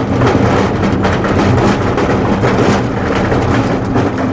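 Loud, steady vehicle noise while driving: engine hum and road noise.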